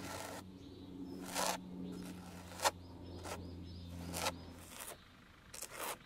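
Palette knife scraping and spreading thick white texture paste across a canvas, in short strokes about once a second. A low steady hum runs underneath and stops near the end.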